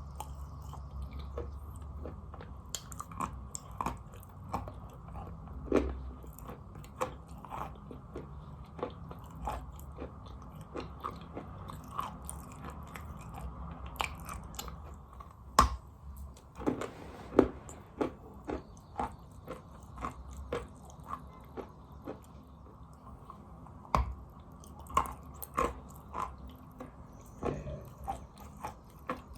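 Close-up biting and chewing of chalk: irregular crisp crunches and clicks as pieces are bitten off and ground between the teeth, with a few louder bites.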